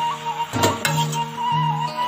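Background music: held low notes under a wavering high melody line, with one short knock about a third of the way in.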